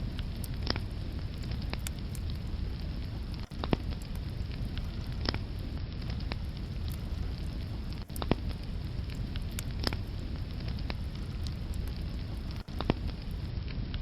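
Wood fire burning in a fireplace: a steady low rumble of flames with scattered sharp crackles and several louder pops from the burning logs.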